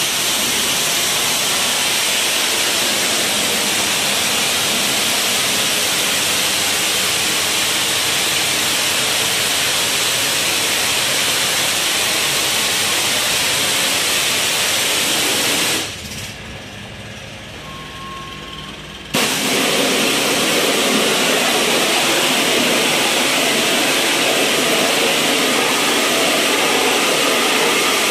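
Pressure-washer lance spraying a high-pressure jet of water onto a concrete floor and metal channel-drain grates, a steady hiss. The spray stops for about three seconds partway through, then starts again.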